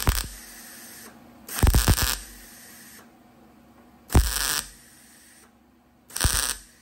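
Wire-feed welder striking short tack welds on a broken bolt stub: four bursts about half a second each, roughly two seconds apart.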